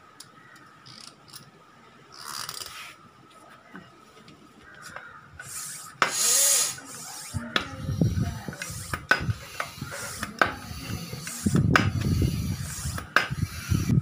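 Hand bicycle pump inflating a bicycle inner tube: a loud hiss of air about six seconds in, then repeated pump strokes, about one a second, each with a thud and a click.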